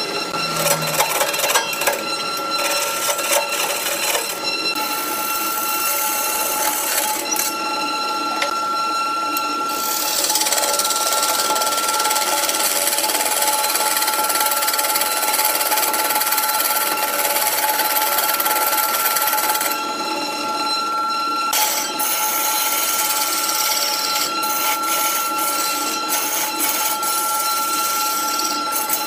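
Wood lathe running with a steady whine while a hand-held turning tool cuts into the spinning wooden blank. The cut makes a loud scraping hiss that swells about a third of the way in, drops away briefly about two-thirds in, and starts again.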